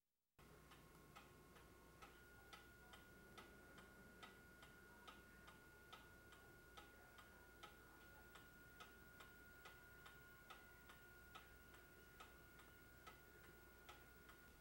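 Mechanical pendulum clock ticking steadily, about two and a half ticks a second, from a carved oak kitchen clock.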